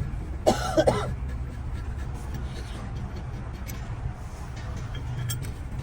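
Steady low mechanical rumble, with a brief voice about half a second in.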